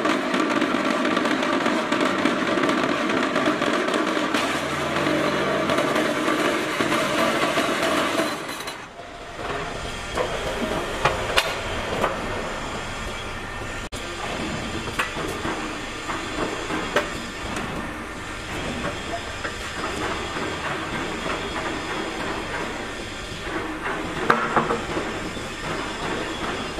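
QT4-35 manual concrete block machine running: a loud, steady mechanical rattle as it vibrates the concrete in the mould for about the first eight seconds, then it stops. Sharp metal clanks and knocks follow at intervals as the formed blocks are demoulded and taken off on the block cart.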